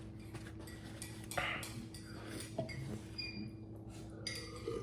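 Cutlery clinking lightly against a dish while eating, a few scattered small clicks and brief ringing ticks over a steady low hum.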